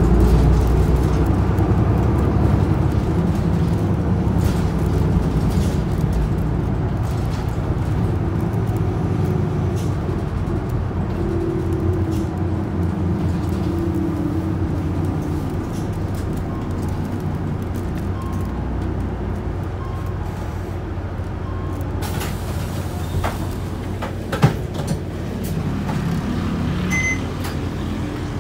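Running sound heard inside an Isuzu Erga PKG-LV234L2 city bus: the diesel engine drones steadily with a whine that rises and falls as the bus speeds up and slows. Near the end the hiss of road noise grows and there is one sharp click.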